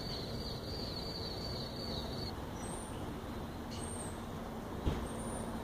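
A steady low rumble, with a thin high whine that stops about two seconds in, three short high chirps spaced about a second apart, and a single click near the end.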